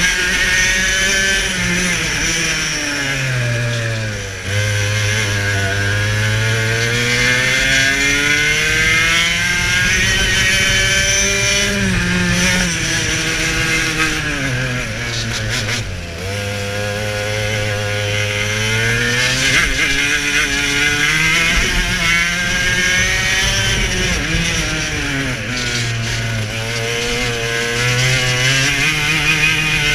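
Two-stroke TKM racing kart engine at full throttle, heard onboard. Its pitch climbs steadily along each straight and drops sharply as the driver lifts for the corners, about four times, then winds up again.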